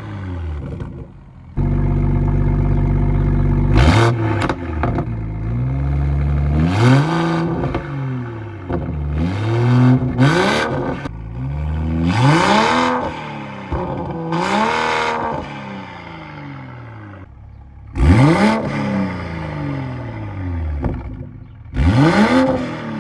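BMW M240i's B58 3.0-litre turbocharged straight-six with an Active Autowerke downpipe and FF exhaust being revved. A steady held rev of about two seconds is followed by a string of quick blips that rise and fall, with a few sharp cracks as the revs drop.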